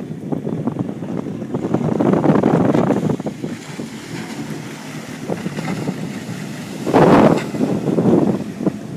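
Wind buffeting the microphone over rushing, splashing water from a boat running fast over choppy sea, with a loud surge of wind and water about seven seconds in.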